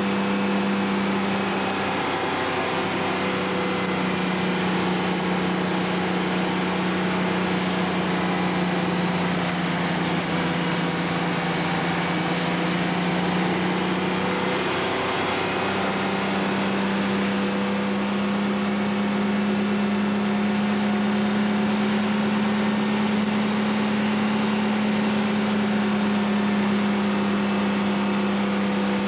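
Fire truck's engine running steadily at the fire scene: a constant loud drone that dips briefly about two seconds in and again around fifteen seconds, settling slightly higher afterwards.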